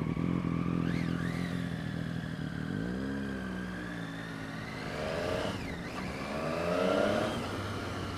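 Motorcycle engines running: a steady idle, then revs rising about three seconds in as a bike pulls away, with two more rising revs later on.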